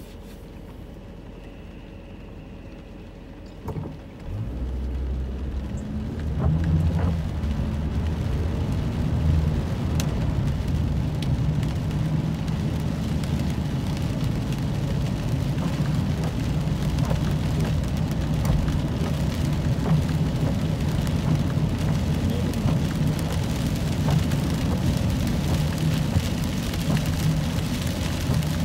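Rain pattering on a car's windshield, heard from inside the cabin, together with the car's engine and tyres on the wet road. The sound gets louder about four to six seconds in, as the car moves off from a stop, and then stays steady.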